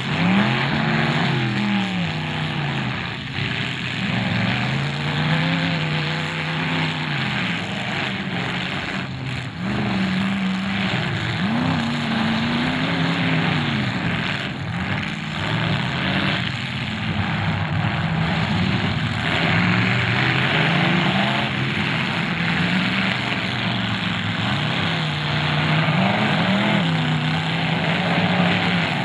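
Several demolition derby cars' engines revving and running hard at once, their pitch climbing and dropping over and over as the cars accelerate and back up, with a few thuds of cars colliding.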